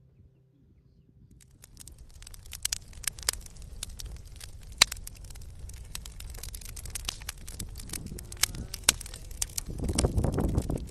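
Wood fire crackling in small portable stainless fire stoves: a steady run of sharp pops and snaps that begins about a second and a half in. A low rumble joins near the end.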